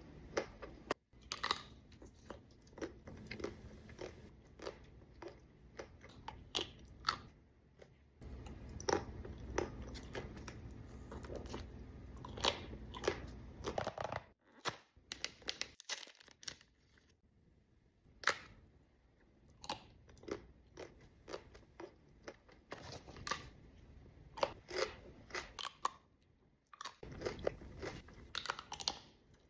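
Someone chewing and biting Ferrero Rocher chocolates, with the wafer shell and hazelnut crunching in many sharp, irregular crunches. There is a short lull a little past halfway.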